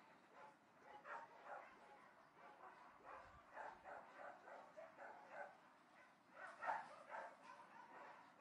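Dogs barking in the distance, faint and repeated in irregular runs, with one louder bark about six and a half seconds in.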